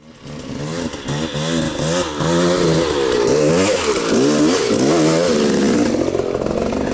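Two-stroke dirt bike engine revving up and down repeatedly as the rider works the throttle on and off, its pitch rising and falling about twice a second.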